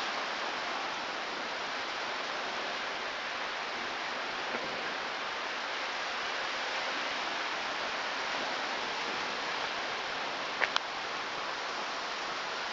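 Steady rain falling, an even hiss, with two sharp clicks close together near the end.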